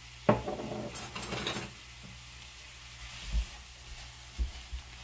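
Pork sausage, diced onion and red bell pepper starting to fry in a skillet: a faint steady sizzle. A short clatter about a third of a second in, and a few dull knocks in the second half as a slotted spatula starts breaking up the sausage in the pan.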